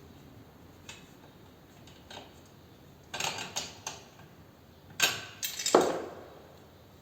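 Metal tools clicking and knocking against motorcycle parts in two short flurries, about three and five seconds in, with the loudest knock near the end.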